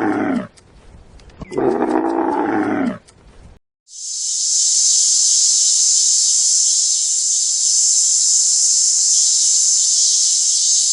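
Two long, drawn-out moos from a bovine, the first ending about half a second in and the second running from about 1.5 to 3 seconds. After a short gap, a steady high hiss fills the rest.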